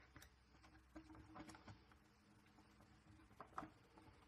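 Near silence with a few faint clicks and rubs as a plastic cable-gland sealing nut is screwed tight by hand; the plainest click comes about three and a half seconds in.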